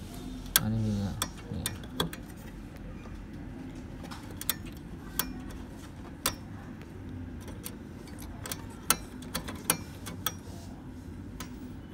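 Irregular small clicks and taps of plastic and metal parts inside a laser printer as fingers work at its spring contacts, over a low steady hum.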